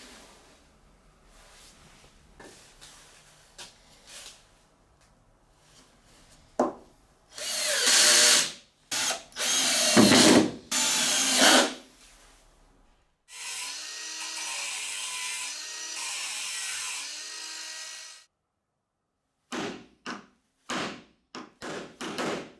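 Cordless drill-driver driving screws into plywood in several short, loud runs. These are followed by a quieter, steady whine of a power tool lasting about five seconds, and then a handful of short bursts near the end.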